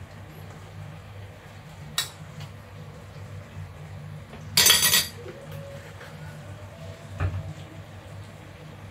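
Kitchen utensils clinking and clattering: a sharp clink about 2 seconds in, a loud brief metal clatter around the middle, and a duller knock near the end, over a steady low hum.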